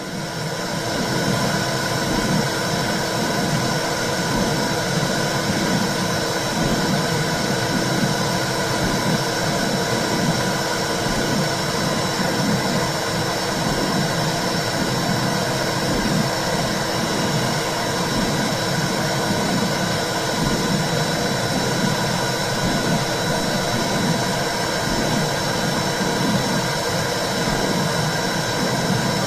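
Womb sound for soothing a baby: a steady low whooshing noise that pulses in a slow, regular rhythm like a heartbeat, fading in at the start.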